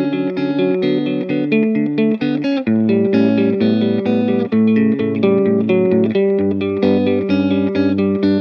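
Guitar music: a steady run of quick picked notes over a bass line that changes pitch a couple of times.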